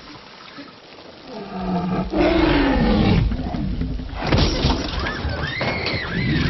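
Film sound effect of a Tyrannosaurus rex roaring: a loud, deep roar that falls in pitch, starting about two seconds in. It is followed by a child's high screams near the end.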